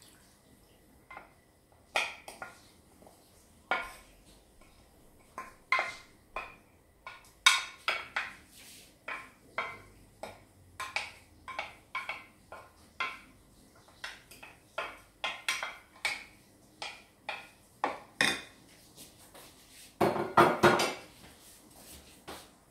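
Wooden spoon knocking and scraping against a glass bowl to get the herb salad out, a long irregular series of sharp clicks and knocks. Near the end comes a short, denser and louder clatter of the spoon against the glass dish as the salad is tossed.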